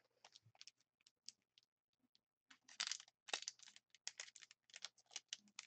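Faint crinkling and clicking of a trading card pack wrapper being handled and torn open by hand, a few scattered crackles at first, then a dense run of them from about halfway through.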